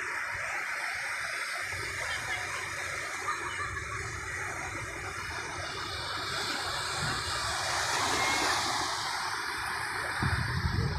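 Ocean surf washing up the beach: a steady rush of breaking waves that swells louder about eight seconds in. A few low thumps come near the end.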